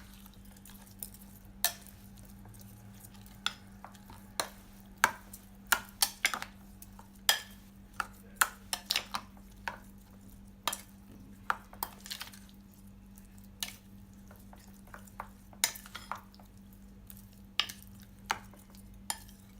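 A spoon knocking and scraping against a bowl at irregular intervals while stirring mashed roasted eggplant with coconut milk, over a steady low hum.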